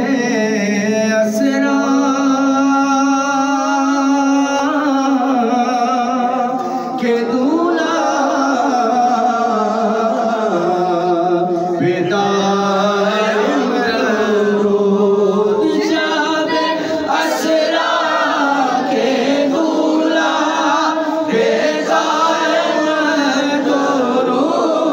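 Naat recitation: voices singing a devotional song in praise of the Prophet Muhammad. The singing uses long, wavering held notes over a steady low note.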